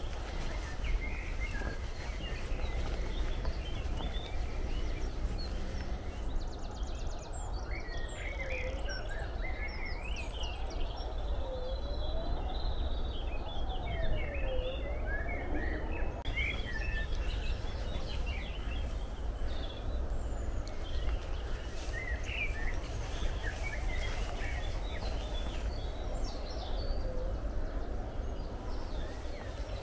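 Countryside ambience: small birds chirping and singing on and off over a steady low rumble. A few calls that dip and then rise in pitch come about three seconds apart, three in a row in the first half and once more near the end.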